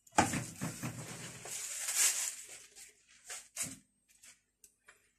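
Rough rustling and rattling for about two and a half seconds, then a few sharp knocks as a silicone spatula works a nonstick frying pan of freshly piped kunafa strands.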